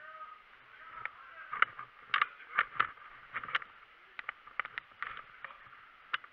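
A quick, irregular run of sharp clicks and knocks, starting about a second in and stopping just before the end.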